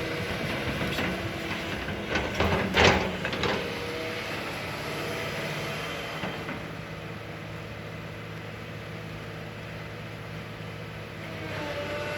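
Excavator's diesel engine running steadily, with a short run of metal clanks about two to three seconds in, the loudest near three seconds.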